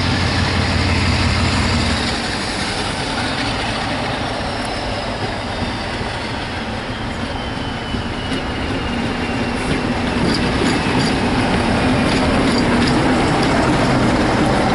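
Diesel locomotive hauling passenger coaches approaches and passes close by, its engine running steadily and getting louder toward the end, with wheels clicking on the rails in the last few seconds.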